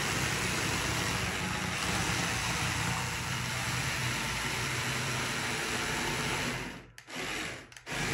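CaDA radio-controlled brick Tiger tank driving: its electric drive motors running as its plastic tracks rub over a plywood surface. About seven seconds in it stops, runs briefly, stops again, then starts once more right at the end.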